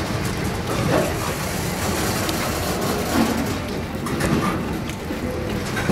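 Freight cars rolling past: a steady rumble of steel wheels on rail, with scattered clicks and knocks from the wheels and trucks.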